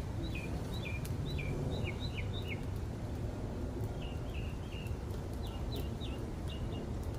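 A small bird calling over and over, a quick series of short chirps that each drop sharply in pitch. The chirps come in two runs, with a pause of about a second and a half between them, over a steady low outdoor background noise.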